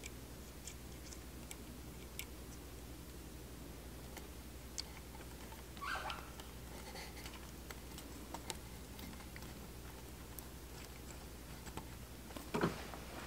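Faint small metallic clicks and handling noise as a nut is threaded by hand onto a motorcycle water pump shaft, over a steady low hum. There are two louder short scrapes, about six seconds in and near the end.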